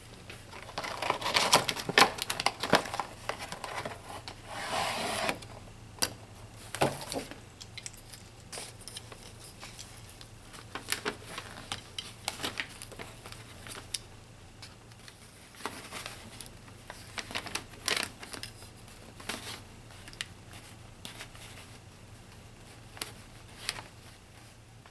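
Hands handling small plastic toys and their packaging: scattered clicks and taps with short rustles, busiest in the first few seconds and sparser after.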